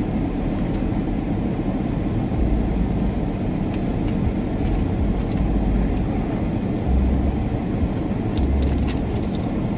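Steady rumble and hiss inside a stopped car's cabin, with several short bouts of deeper low rumble and scattered small clicks as the driver shifts and reaches around in her seat.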